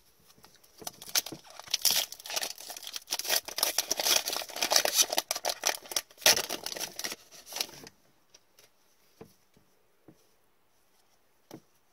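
Foil wrapper of a hockey trading-card pack being torn open and crinkled by hand. The crinkling stops about eight seconds in, followed by a few faint taps as the cards are handled.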